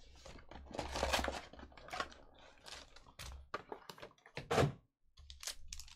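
Foil trading-card packs being handled and pulled out of a cardboard hobby box: a string of light clicks, taps and rustles, with one louder knock about four and a half seconds in.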